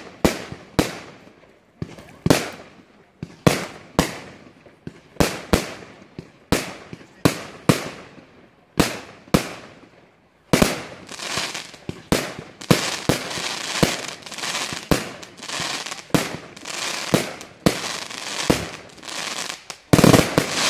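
Aerial fireworks going off in quick succession, sharp bangs about one or two a second. From about halfway through, crackling fills the gaps between the bangs, and a denser volley comes near the end.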